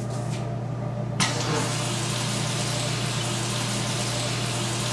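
Water rushing into a toilet tank as the supply valve is turned back on: a steady hiss starts suddenly about a second in as the tank refills through its fill valve.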